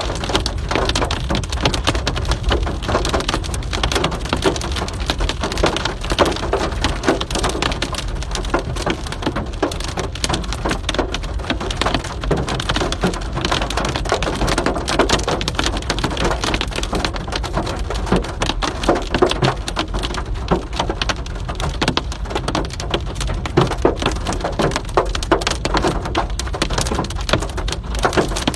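Hail falling with rain in a heavy storm, a dense, steady pelting of sharp hits on hard surfaces.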